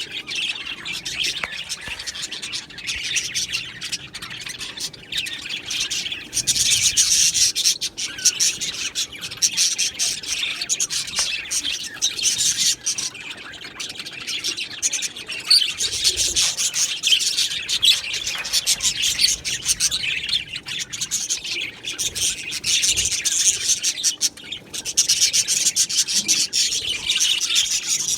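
Budgerigars chirping and warbling in a dense, continuous chatter of high calls, swelling louder a few times.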